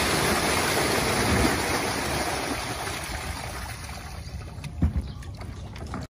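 A rush of pouring, splashing water, as fish and water are tipped out into a river. It sets in just before, is loudest in the first two seconds and slowly dies down, with a couple of dull knocks about five seconds in.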